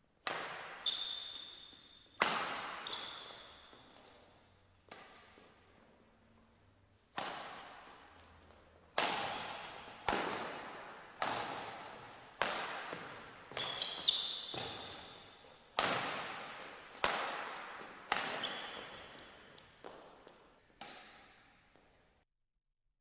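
Badminton racquets striking a shuttlecock back and forth in a long rally: about fifteen sharp hits, one to two seconds apart, each echoing in a large hall, with short high shoe squeaks on the court. The sound cuts off suddenly near the end.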